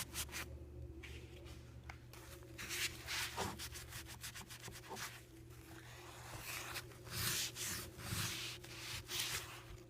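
Paper towel scrubbing dirt spots off a MacBook's lid: quick rubbing strokes in bouts, with a lull in the middle.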